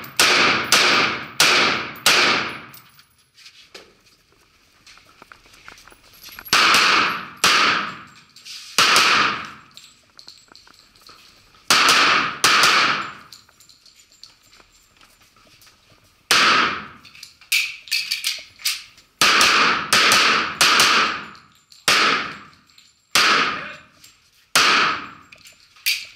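Pistol shots from a Sig Sauer TacOps 1911, fired mostly in quick pairs and short strings, each with a long echoing tail off the walls of an indoor range. Pauses of a few seconds separate the strings.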